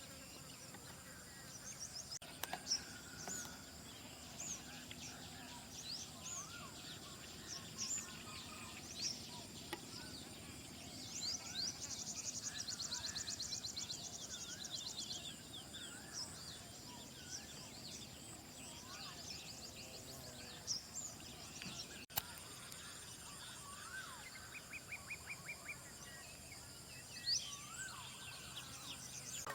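Dawn chorus of several wild birds singing and calling, with many short chirps and whistled notes and a fast high trill lasting a few seconds about twelve seconds in.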